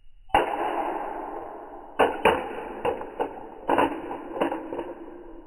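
Rustling and scraping from a small toy car being handled, starting suddenly, with several sharp clicks and knocks about two to four and a half seconds in.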